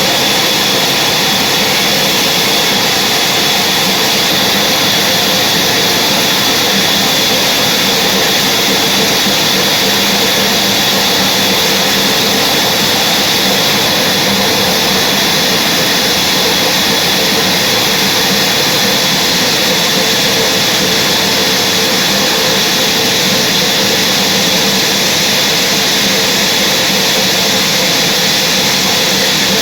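Sawmill machinery running steadily: a loud, constant noise with a high whine.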